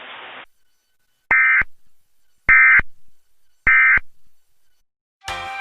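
EAS end-of-message signal: three short bursts of SAME digital data tones, a rapid two-tone warble, spaced a little over a second apart. It marks the close of the emergency alert.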